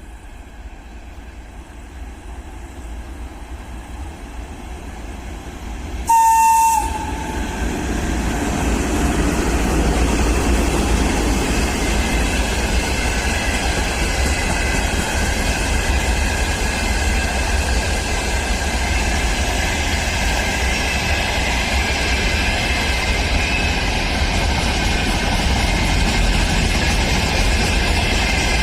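A VL10 electric locomotive hauling a freight train approaches, growing steadily louder, and gives one short horn blast of about a second, about six seconds in. The train then rolls past continuously, the wagons' wheels clattering over the rail joints with a steady high ringing whine.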